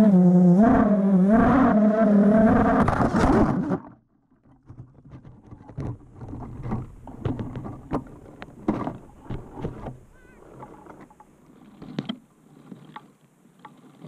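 FPV quadcopter's brushless motors whining, the pitch rising and falling with the throttle, then cutting off suddenly about four seconds in as the drone crashes into a tree. After that only faint scattered ticks and rustles.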